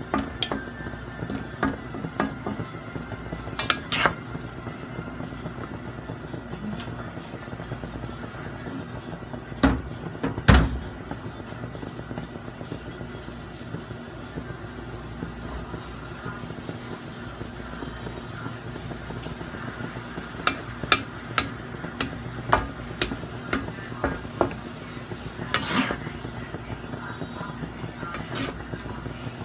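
Wooden spatula and metal ladle scraping and clinking against a large wok while noodles are tossed and stirred, with irregular knocks and clinks, the loudest about ten seconds in, over a steady low background hum.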